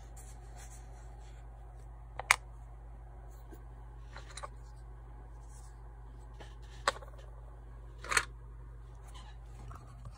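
Small lock covers being handled, giving four short sharp clicks and taps, the loudest about two seconds in, over a steady low hum.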